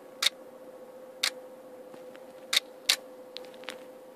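Camera shutter clicking as a lightning trigger fires it: four sharp clicks at uneven intervals, over a faint steady hum.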